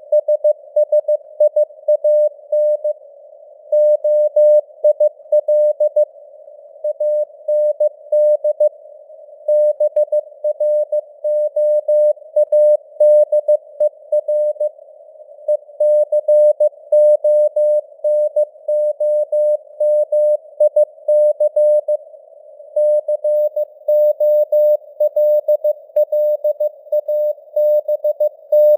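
Computer-generated Morse code (CW) sent at 15 words per minute: one steady mid-pitched beep keyed into dots and dashes, with short gaps between letters and longer ones between words, over a soft hiss of simulated radio noise.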